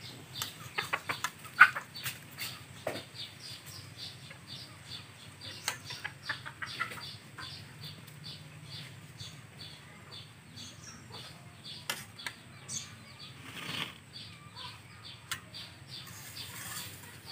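Steel ladle clinking and scraping against steel plates while fish curry is served onto rice, sharpest about a second and a half in. Behind it, a steady high chirping repeats about four times a second.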